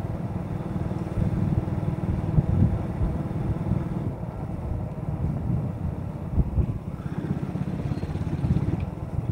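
Motorcycle running while riding along a street, with a heavy low rumble of wind buffeting on the microphone.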